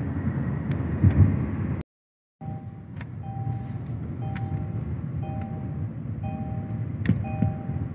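Road rumble heard from inside a moving car. After a break about two seconds in, a steady electronic two-tone beep repeats about once a second over the rumble.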